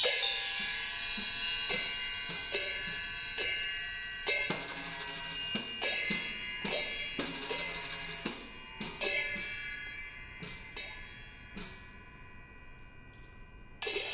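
A quartet of small, portable percussion instruments playing: separate strikes whose metallic tones ring on, with sharp taps and clicks between them. The strikes come densely in the first half, then thin out and grow quieter, the ringing fading away near the end.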